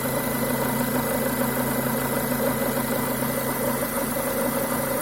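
Renault Duster 2.0's four-cylinder petrol engine idling with a gurgling, croaking noise from the left side of the engine, which the owner puts down to a faulty crankcase ventilation (PCV) valve.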